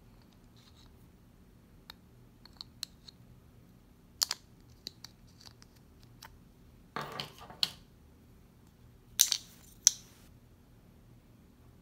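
Metal key blade prying a coin-cell battery out of a Chevy Malibu smart key fob's plastic case: scattered small clicks, a short scrape about seven seconds in, and two sharp clicks a little after nine seconds as the battery comes free.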